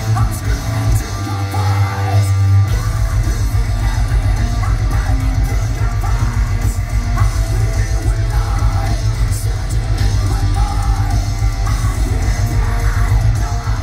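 Heavy metal band playing live, with guitar, drums and yelled, sung vocals. Fast, even low drumbeats set in about three seconds in.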